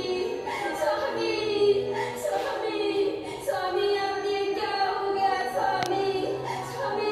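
A high voice singing a melodic song with musical accompaniment, from the soundtrack of a Ramlila puppet show; a single sharp click about six seconds in.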